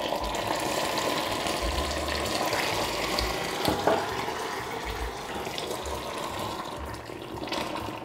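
Very hot water poured into freshly made molten caramel in a glass bowl, the mixture boiling up hard and sputtering: a steady rushing, bubbling hiss that slowly eases.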